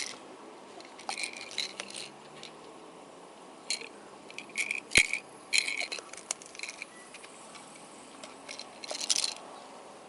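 Several short bursts of clinking and rattling, like small hard objects being handled, with one sharp click about five seconds in.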